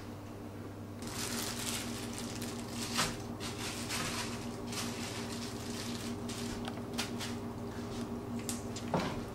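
Rustling and crinkling of hands handling a whole raw chicken on a cutting board, with a few sharp knocks of a cleaver against the board, over a steady low hum.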